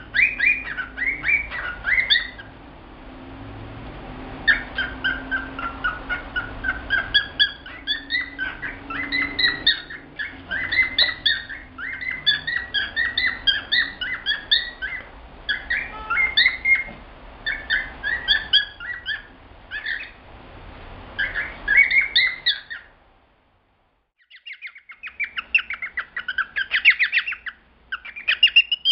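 Male cockatiel singing: a long string of chirped and warbled whistles that stops for about a second and a half near the end, then starts again.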